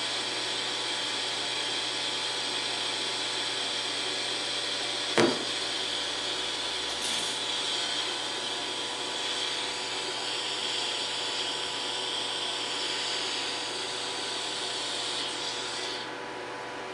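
DC TIG welding arc from a Forney Easy Weld 180 ST, hissing steadily with a faint fixed whine while a fillet weld is run on steel plate with filler rod. There is a sharp click about five seconds in. The hiss changes partway through and cuts off abruptly near the end.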